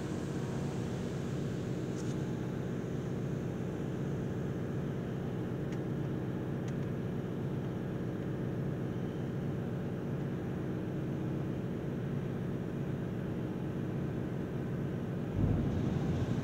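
Water from a touch-free automatic car wash spraying over the car, heard from inside the car as a steady rushing over a low hum. It grows louder near the end.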